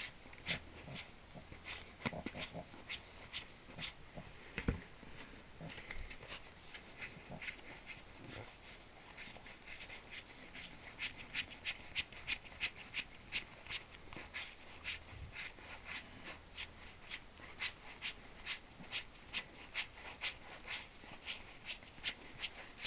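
Sleeved Yu-Gi-Oh trading cards being flipped one at a time from one stack to another, each plastic card sleeve giving a light click, about two to three a second.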